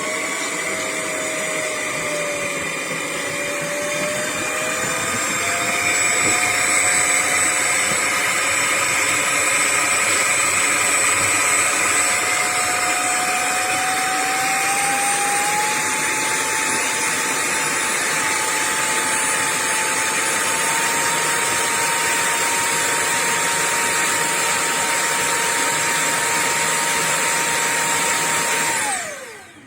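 Bissell CrossWave OmniForce wet-dry vacuum motor running steadily, its whine slowly rising in pitch, then switching off and winding down near the end.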